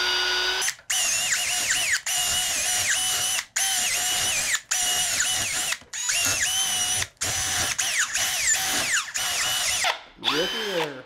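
Power drill with a 1/4-inch bit boring the rubber out of a mini bike's rubber frame bushing, run in short bursts with brief stops every second or so, its whine dipping in pitch again and again as the bit bites.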